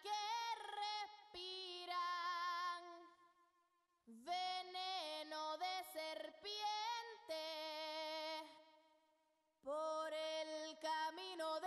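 A woman singing slow, held phrases with vibrato, broken by two short silences.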